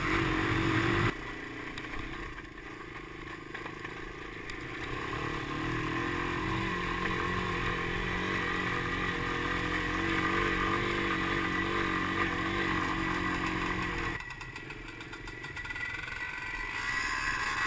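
Dirt bike engine running while riding a trail, heard from a camera on the bike, its revs wavering up and down. The sound jumps abruptly about a second in and again near the end.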